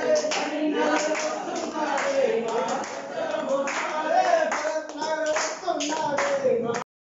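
Voices singing a devotional bhajan together with rhythmic hand clapping, about two claps a second; the sound cuts off suddenly near the end.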